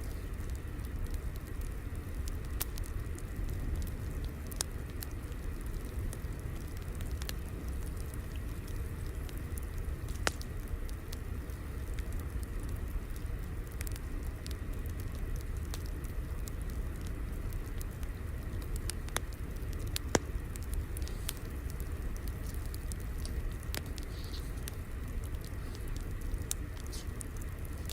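Wood fire crackling: a steady low rumble with sharp pops and snaps at irregular intervals.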